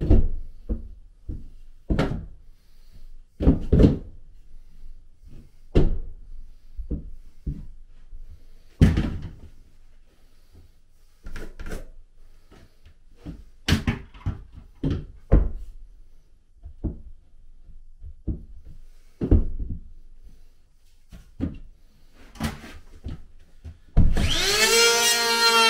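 Scattered wooden knocks and clatter as a long level is set against and lifted off wooden wall studs. Near the end a handheld electric power planer starts up against a bowed stud to shave it flat, its motor spinning up with a quick rising whine and then running steadily.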